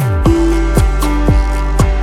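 Background music with a steady beat: a deep drum hit that drops in pitch about twice a second over a held low bass and sustained notes.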